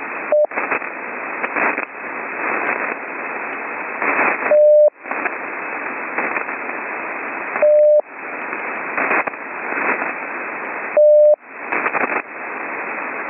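Slow Morse code heard over an HF amateur radio receiver: four single beeps of a steady tone, each under half a second and spaced about three to four seconds apart, the first shorter than the rest. Between them there is a steady band of receiver hiss with crackles of static, typical of rough band conditions during a lightning storm. The hiss cuts out while each beep sounds.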